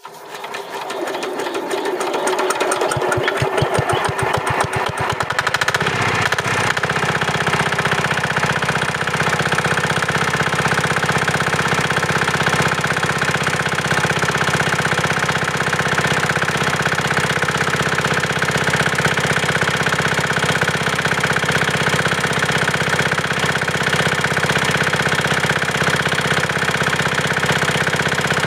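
5 hp Chinese single-cylinder diesel engine, freshly rebuilt with new piston rings, starting up: separate strokes can be heard for the first few seconds as it picks up speed, and it settles into a steady run a few seconds later.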